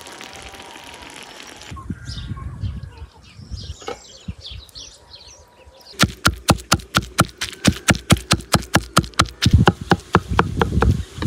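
A cleaver chopping small raw fish on a wooden chopping block, mincing it. The strikes come rapidly and evenly, about six a second, starting about halfway through.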